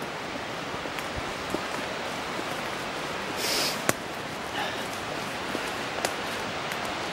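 Footsteps on a forest floor of twigs and needles: a few sharp snaps and a brief rustle over a steady rushing background noise.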